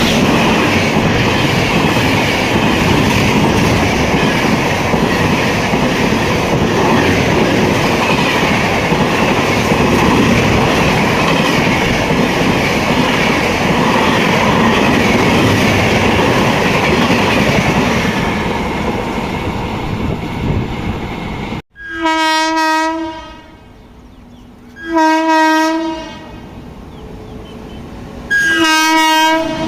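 Indian Railways express train running past at speed, a loud steady rush of wheels on rails and coach noise. After a sudden cut, a locomotive horn sounds three long blasts.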